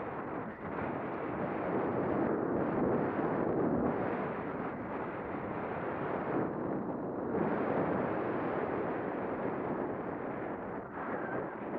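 Wind buffeting a head-mounted action camera's microphone during a ski descent, mixed with skis scraping over packed snow: a steady rushing noise that thins briefly about six to seven seconds in.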